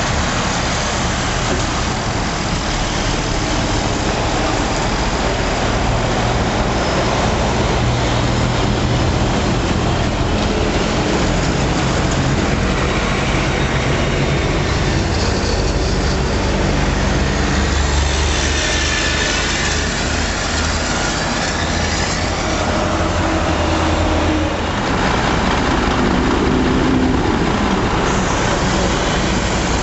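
Large diesel truck engines idling close by over steady highway traffic noise, with a vehicle sweeping past about eighteen seconds in.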